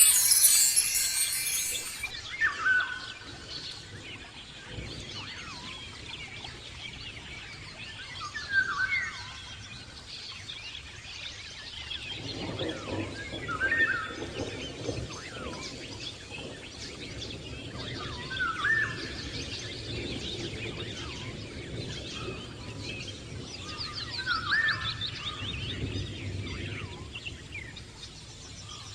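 Small birds, likely caged lovebirds, chirping, with one call repeating about every five seconds. A short, loud, bright chime-like sound opens it, and a low steady murmur comes in about halfway through.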